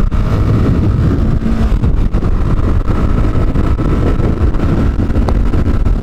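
Regulmoto T-Leopard 300's 174MN single-cylinder 300 cc engine running under steady acceleration in fourth gear from about 70 km/h, with wind rushing over the microphone.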